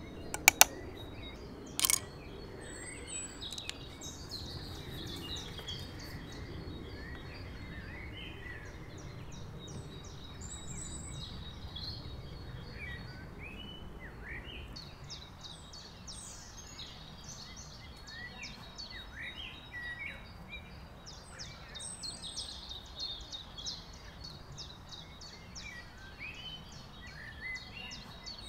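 Several small birds singing and chirping, with bursts of rapid trilled notes, over a steady low background rumble. A single sharp knock about two seconds in.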